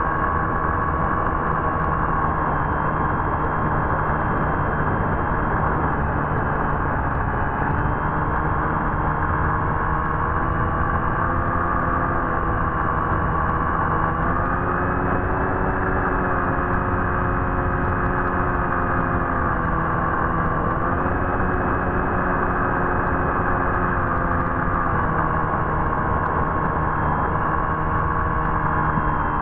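Electric motor and propeller of an FPV model aircraft heard from its onboard camera: a steady whine over rushing air noise, its pitch slowly rising and falling several times as the throttle changes.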